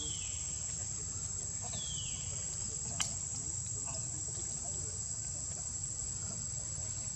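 Steady high-pitched drone of insects, with short falling chirps at the start and about two seconds in, and one sharp click about three seconds in.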